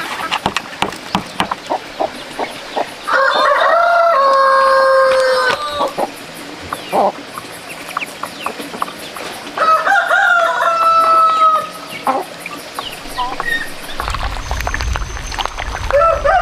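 A rooster crowing twice, each crow a long, drawn-out call of two to three seconds, with a third crow starting at the very end. Between the crows, many short sharp clicks of birds pecking feed from a trough.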